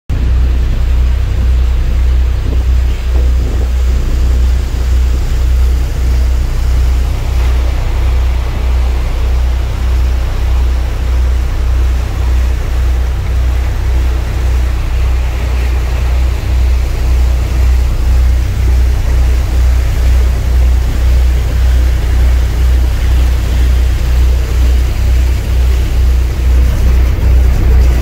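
Cruise boat under way: its engine running steadily as a loud, evenly pulsing low rumble, with the rush of the churning wake over it.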